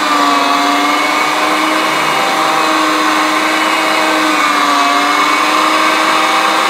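Anko 300 W electric meat mincer running loud with a steady high whine as it grinds strips of beef, the motor pitch sagging slightly now and then under load. It handles the strips with no trouble; the owner puts the noise down to a high-ratio reduction gearbox driving the auger.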